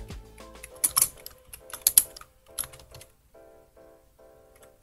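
Computer keyboard typing in short clusters of sharp clicks, the loudest about one and two seconds in, over steady background music; the typing stops about three seconds in and the music carries on alone.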